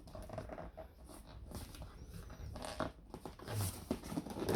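Cardboard box rustling and crackling as it is handled, a string of short irregular crackles, taps and scrapes.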